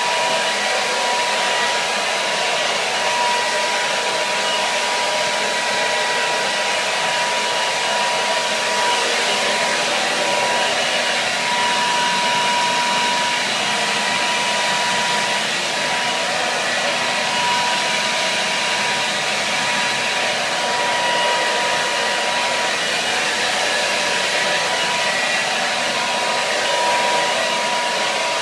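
Hair dryer running steadily: an even rush of blown air with a thin, constant whine held through it.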